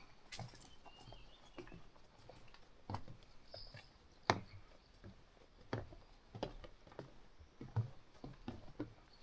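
A hiker's footsteps on a mountain trail, short crunching and scuffing steps at a walking pace, with one sharper crack about four seconds in. Faint bird chirps now and then.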